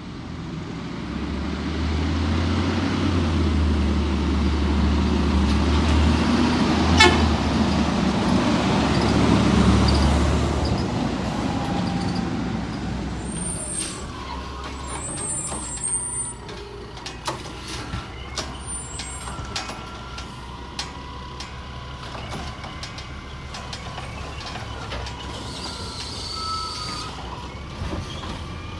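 Garbage truck's diesel engine running close by, loudest about ten seconds in, then falling away to a quieter background with faint passing tones and clicks.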